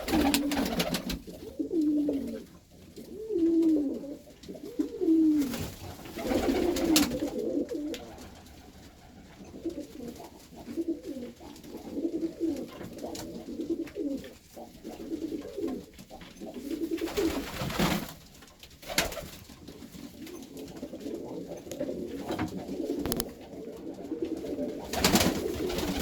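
Several Iranian domestic pigeons cooing over and over in a loft, each coo dipping in pitch, the calls overlapping, with a few brief sharp clattering noises among them.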